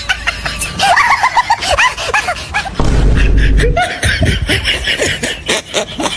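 A young man laughing in quick runs of short 'ha-ha' pulses, with a brief low rumble about three seconds in.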